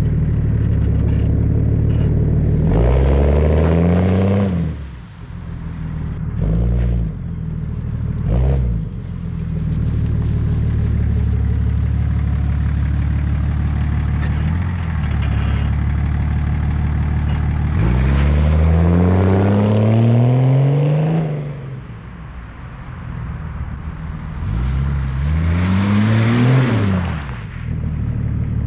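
BMW 730d E38's 3.0-litre inline-six diesel running through a straight-piped dual exhaust: a steady idle broken by revs that climb and fall away. There is a big rev a few seconds in, two short blips, a steady stretch, and two more big revs in the second half.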